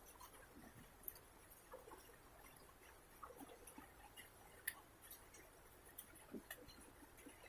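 Near silence with faint, scattered small clicks and ticks of a tool loosening the bolt on an electric bike horn's housing, with one sharper click about halfway through.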